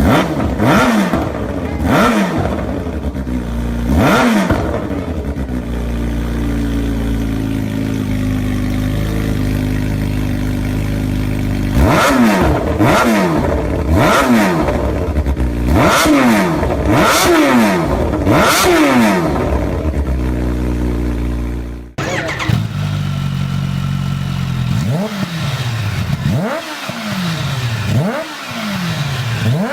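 Kawasaki H2/H2R supercharged inline-four engine idling and being revved in sharp throttle blips, each a quick rise in pitch that falls back to idle. A run of about seven blips comes in quick succession midway, then the sound cuts abruptly to another stretch of idle and blips.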